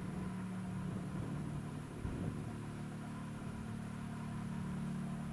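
Eurocopter EC155 helicopter on approach, heard from a distance as a steady low drone of its turbines and rotors.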